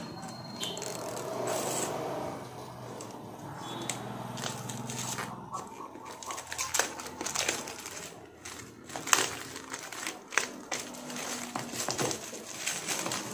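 Clear plastic shrink-wrap on a phone box crinkling and tearing as it is pulled off by hand: irregular sharp crackles, more frequent in the second half.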